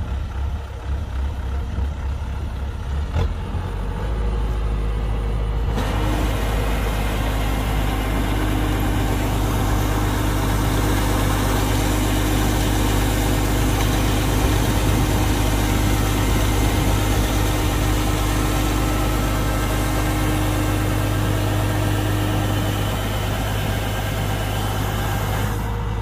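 Diesel engine of a Kubota DC-105X combine harvester running steadily under load. About six seconds in, a loud rushing machine noise joins the engine hum and lasts until just before the end, where it drops away suddenly.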